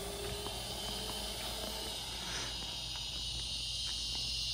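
Steady high-pitched insect chorus, with the faint whine of a distant electric dirt bike's motor fading out in the first second or two.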